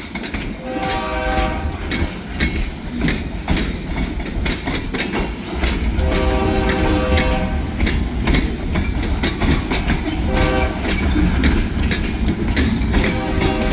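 Freight train locomotive horn sounding two long blasts, a short one, then another long one, over the clanking of rolling railcars and a heavy low rumble of wind on the microphone.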